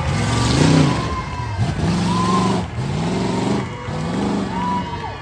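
Tough truck engine revving in repeated surges, its pitch climbing and dropping about four times, once every second and a half or so. A loud burst of broad noise sits over the first second and a half.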